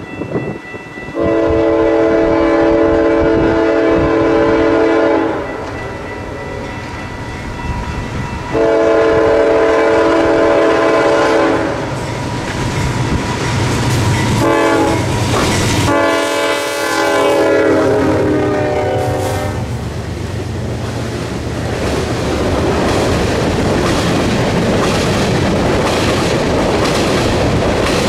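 Freight train's diesel locomotive sounding its multi-chime air horn in the grade-crossing pattern: two long blasts, a shorter one, then a final long one. The locomotive then passes, and a long string of tank cars rolls by with steady wheel-on-rail noise.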